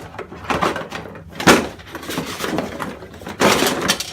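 Rummaging through a box of items: rustling and handling noises with knocks, a sharp knock about one and a half seconds in and a longer rustle near the end.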